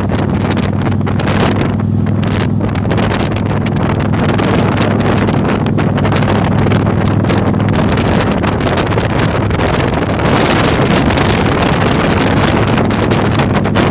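Yamaha Virago 1100's air-cooled V-twin engine running at a steady pace while heavy wind noise buffets the microphone; the wind noise grows louder about ten seconds in.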